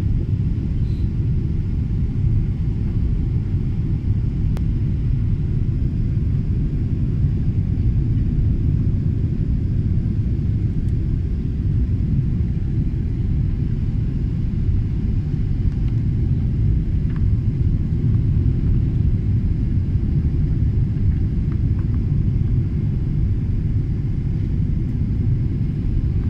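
Airliner cabin noise during the landing approach, heard from a window seat: a deep, steady rumble.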